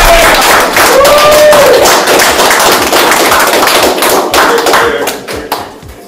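Audience applauding: a loud, dense patter of hand claps that thins out and fades near the end.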